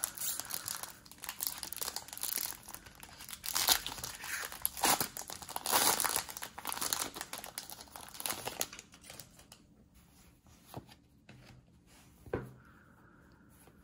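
Foil Pokémon booster pack wrapper being torn open and crinkled by hand, a dense crackling with several louder peaks. It goes much quieter in the last few seconds, with one short tap near the end.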